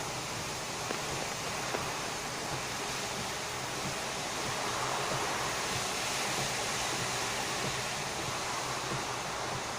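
Storm-driven surf during a typhoon with wind blowing, heard as a steady, unbroken wash of noise.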